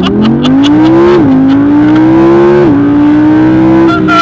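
Audi R8 V10 Plus's 5.2-litre V10 under full-throttle acceleration, heard from inside the cabin. The engine pitch climbs, drops sharply at a quick upshift about a second in, climbs again, shifts up again near three seconds, and climbs once more.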